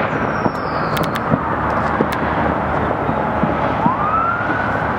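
Distant New Year's fireworks popping now and then over a steady, dense din of city noise. About four seconds in, a siren rises in pitch and holds.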